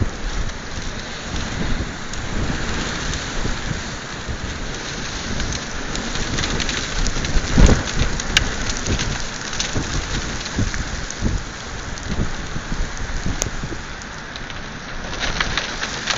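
Thunderstorm: rain falling steadily under low rolling thunder, with one sudden loud crack about halfway through.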